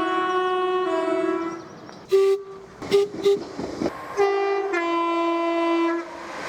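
Train horn playing a sequence of notes: a held blast that shifts between tones, a few short toots about two seconds in, then a long blast that steps down in pitch and stops about six seconds in.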